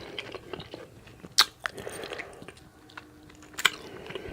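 A person chewing food with the mouth open, close to the microphone: soft wet mouth clicks with a few sharp smacks.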